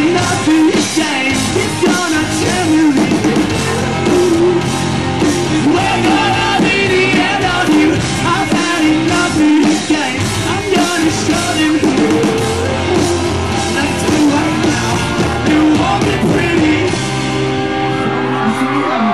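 A rock band playing live: electric guitars and drums with a singer's voice over them, loud and unbroken.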